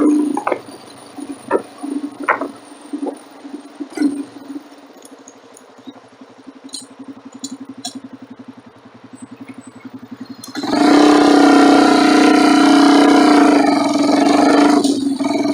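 Motorcycle engine ticking over with a fast, even pulse and a few sharp clicks, then suddenly much louder about ten and a half seconds in as the bike rides off, with a rushing noise over the engine.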